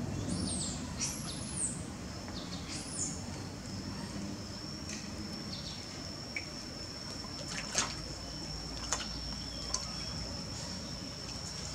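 Light dripping and splashing of water as a monkey drinks from a pool in a concrete well, with a few sharp clicks in the second half. Three high, falling chirps sound in the first three seconds, and a steady high thin tone comes in at about three seconds and holds.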